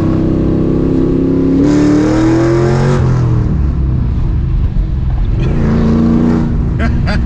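Ford Mustang GT's 4.6L three-valve V8, fitted with long-tube headers, an off-road X-pipe and a Borla ATAK exhaust, accelerating hard. The revs climb from about a second and a half in, fall at a gear shift about three seconds in, then climb again near the end.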